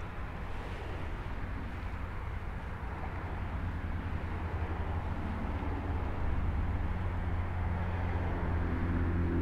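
Steady low rumble of highway traffic, growing louder toward the end as a vehicle comes closer.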